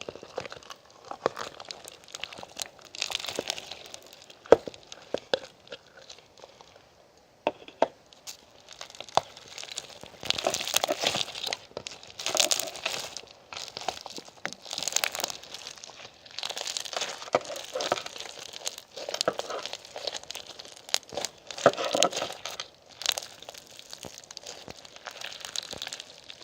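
Crinkling and crumpling of packaging as it is handled, in irregular bursts with sharp clicks, denser in the second half.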